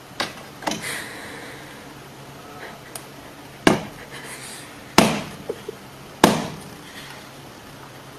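Five sharp knocks on a hard surface: two lighter ones close together near the start, then three louder ones spaced a little over a second apart, with a few faint ticks between them.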